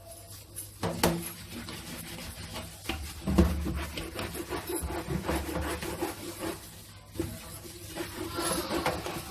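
Brush scrubbing a greasy range hood filter, an uneven rubbing sound with a few knocks.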